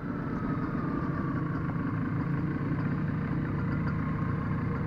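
Motorcycle engine idling steadily close by, with a faint whine that drops slightly in pitch over the first few seconds.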